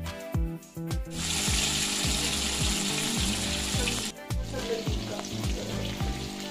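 Marinated fish pieces deep-frying in hot oil: a dense sizzle comes in about a second in and drops to a fainter sizzle around four seconds. Background music with a steady beat plays throughout.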